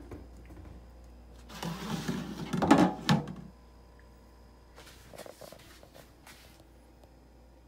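A plastic-bagged block of pork ribs handled on a stainless steel counter: about two seconds of plastic rustling with two sharp knocks against the steel, then a few faint clicks.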